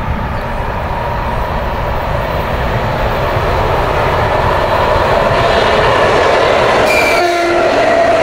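Electric train running on the main line, its rumble and a steady whine growing louder as it approaches. A short high tone sounds about seven seconds in.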